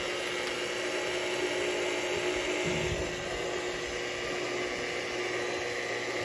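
Milwaukee electromagnetic drill press's electric motor running steadily, free-spinning without drilling, a steady whine over an even whir.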